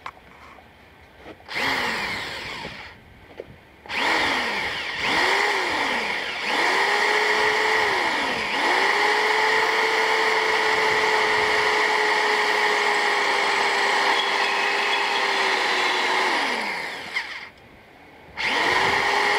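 Cordless drill-driver boring a hole through the steel blade of a kitchen meat hatchet-hammer held in a vise. The motor whines up and stops in several short bursts, then runs steadily for about eight seconds before winding down, and starts again near the end. The bit cuts through easily, which the owner takes as proof that the blade is not stainless steel.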